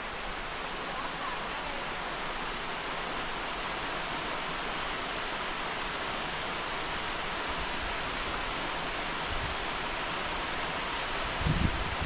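Steady rushing of a waterfall pouring over a lake dam, with a few low thumps near the end.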